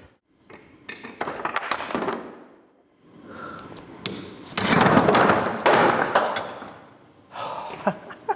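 Steel hammer striking a pin punch on a differential part held in a bench vise, driving out a retaining pin: a few scattered knocks, then a long run of rapid, loud blows about halfway through.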